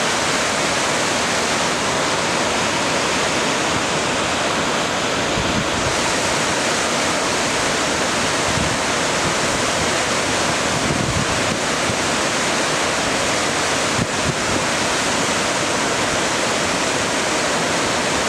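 The Carbon River, a glacier-fed river running high, raging through whitewater over boulders: a loud, steady rush of water.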